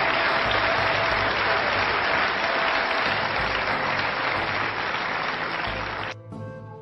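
Snooker hall audience applauding steadily. About six seconds in the applause cuts off abruptly and music begins.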